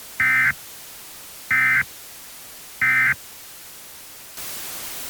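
Emergency Alert System end-of-message signal: three short, identical bursts of SAME digital data tones about a second and a half apart, marking the end of the alert. Near the end comes about a second of static hiss.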